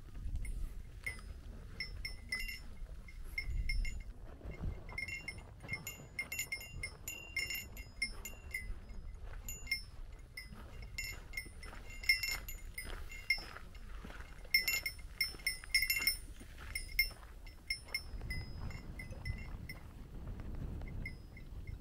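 A small metal bell jingling in irregular quick clinks with a bright ring, busiest through the first three quarters and thinning out near the end.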